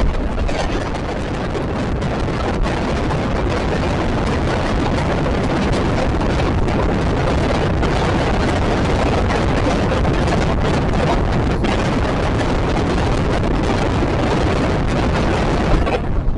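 Passenger train running: a steady, loud rumble of the coach and wheels on the rails, with wind noise.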